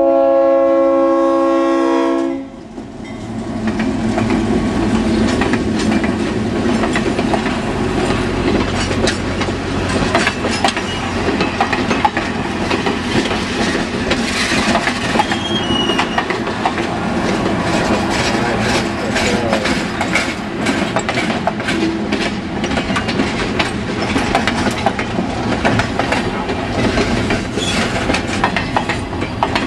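Train's air horn sounding a chord of several steady tones that cuts off about two seconds in. Then the passenger cars roll past, a steady rumble with rapid clicking of wheels over the rail joints.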